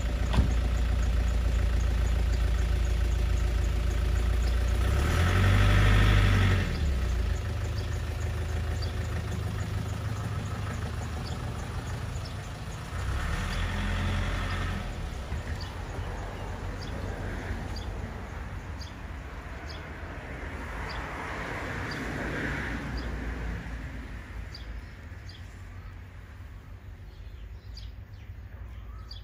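An engine running steadily with a low hum, swelling louder twice, about five and thirteen seconds in, then fading away toward the end. Faint short high chirps repeat about once a second.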